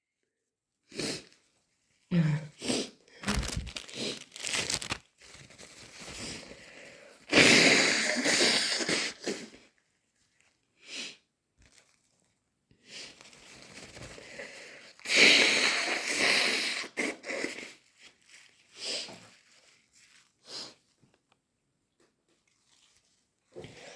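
A person blowing their nose wetly, twice, each blow lasting about two seconds, with shorter breathy sounds between them.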